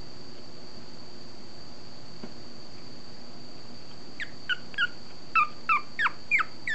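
A month-old long-coat Chihuahua puppy squeaking and whimpering: about eight short, high, falling squeaks in quick succession, starting about four seconds in. A steady faint high whine runs underneath.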